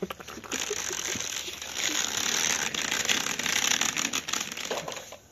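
Plastic toy bicycle pushed by hand across a rough floor: its plastic wheels rolling with a gritty scraping noise and many small clicks and rattles. The noise builds about half a second in and fades near the end.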